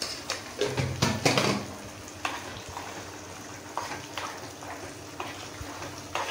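Spicy potato gravy (rassa) in oil bubbling and sizzling in a metal pan, with a steel spoon stirring and scraping against the pan. The loudest scrapes and knocks come about a second in, followed by lighter strokes.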